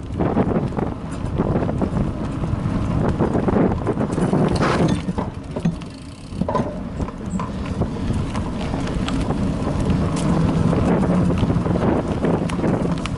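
Bicycle riding over a bumpy dirt forest trail: wind buffeting the action camera's microphone, with irregular rattles and knocks from the bike jolting over the rough ground.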